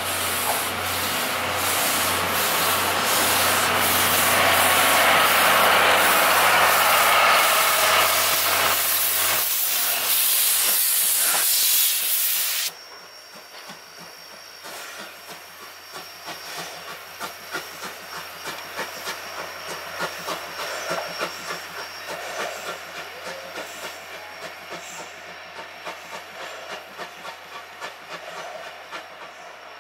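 A steam locomotive, a C11-class tank engine, lets off a loud, continuous hiss of escaping steam that cuts off suddenly after about thirteen seconds. It then pulls away, heard as a quieter run of regular exhaust beats, about two a second.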